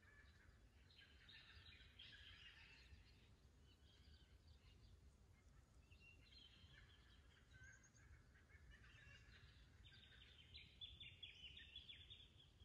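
Faint birdsong: several birds giving spells of quick repeated chirping notes, three times, the loudest and densest near the end, over a low steady rumble.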